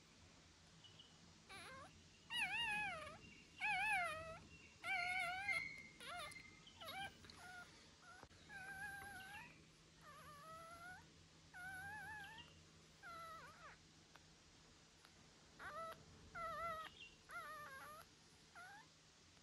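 Young puppy crying: a long run of short, high, wavering whimpers, loudest in the first few seconds.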